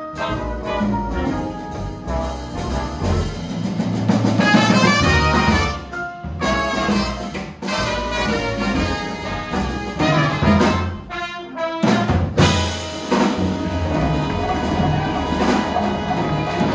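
A live ten-piece band playing with brass horns and drums. The whole band stops briefly about 6 seconds in and again about 11 seconds in.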